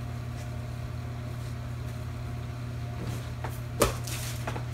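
Steady mechanical hum of a running kitchen appliance or fan, with a few light ticks and one sharp clink near the end.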